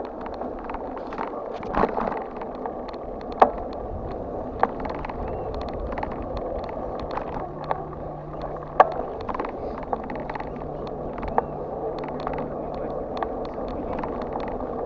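Bicycle riding on a paved path, heard from a handlebar-mounted camera: a steady rumble of tyres and wind, with sharp knocks and rattles here and there as the bike goes over bumps.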